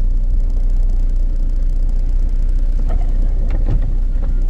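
Land Cruiser's engine running with a steady low rumble, heard from inside the cabin, with a few brief higher-pitched sounds near the end.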